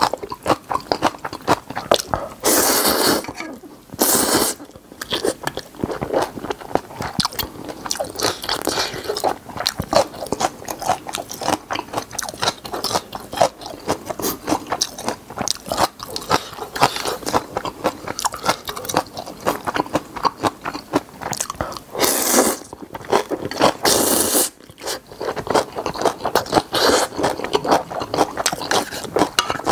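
Close-miked wet chewing and crunching of napa cabbage kimchi and spicy instant ramyeon noodles. Two pairs of long, loud noodle slurps come a few seconds in and again about three-quarters of the way through.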